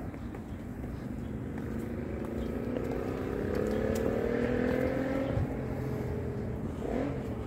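A motor vehicle drives past, its engine note slowly rising in pitch as it accelerates. It is loudest about four to five seconds in and then dies away.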